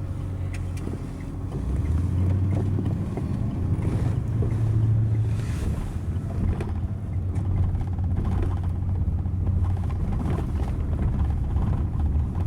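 Engine and road noise heard from inside a moving tour van: a steady low drone.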